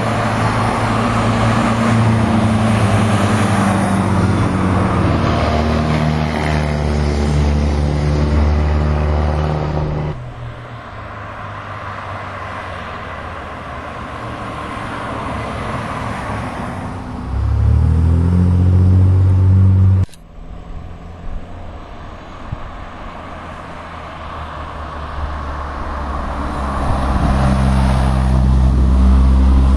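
Cars driving past one after another on a climbing road, each engine's pitch rising as it accelerates up the grade and passes close by. There are three loud pass-bys with quieter running in between, and the sound breaks off abruptly about two-thirds of the way through.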